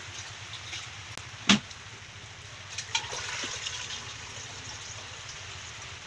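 Water being poured out and splashing, with a sharp knock about one and a half seconds in.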